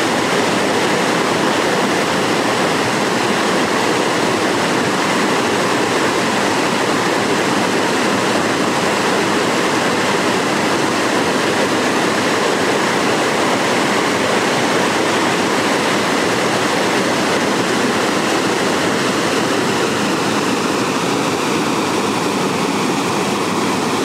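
Mountain stream tumbling over mossy boulders in small cascades: a steady, loud rush of whitewater with no breaks.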